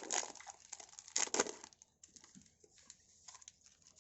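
Plastic trading-card pack wrapper crinkling as it is torn open, with two louder rips in the first second and a half, then only faint rustles and light taps.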